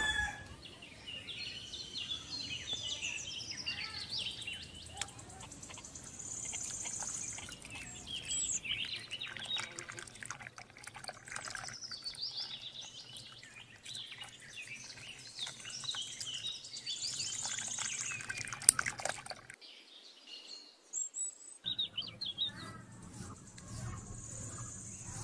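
Small birds chirping and calling over one another, with a single sharp click a little past two-thirds of the way through.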